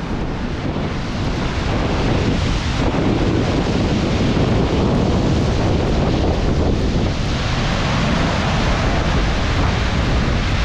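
Roar of the Goðafoss waterfall: a loud, steady rush of falling water, with wind on the microphone.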